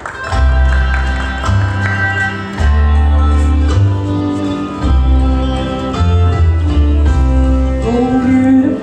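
Instrumental music: held notes over a deep bass line that moves from note to note, with a singing voice coming in near the end.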